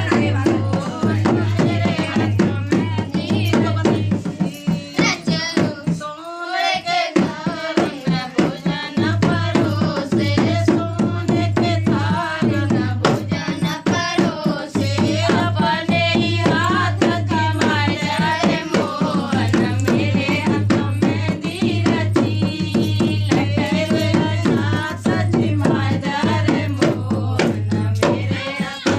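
Indian folk song, with singing over rhythmic dholak drumming. The music dips briefly about six seconds in, and the low drum pattern is absent for a few seconds around then.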